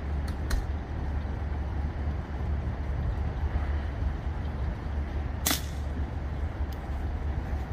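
Steady low rumble on the microphone, and about five and a half seconds in a single sharp crack of an air rifle shot.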